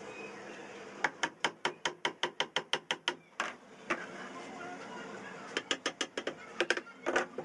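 A hammer tapping lightly on a laminated wooden cabinet: a quick run of evenly spaced taps, about five a second for two seconds, then two single taps and a second shorter run near the end.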